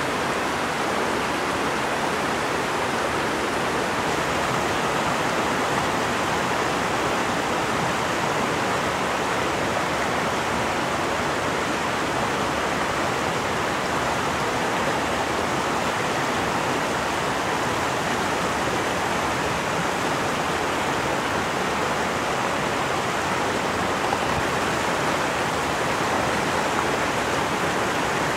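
Steady rushing of flowing water, an even, unbroken noise.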